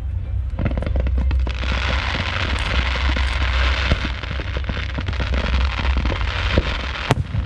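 Fireworks: ground-level fan cakes firing sprays of comets, a dense crackling hiss full of rapid pops that builds after the first second. A single sharp bang comes about seven seconds in.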